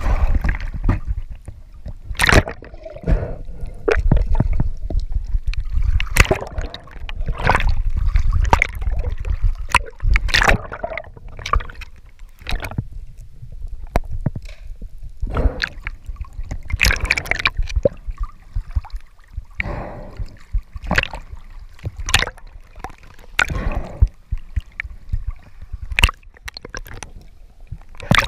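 Water sloshing and gurgling around a spearfisher's camera housing, first at the surface and then underwater through a dive, with many irregular sharp clicks and knocks.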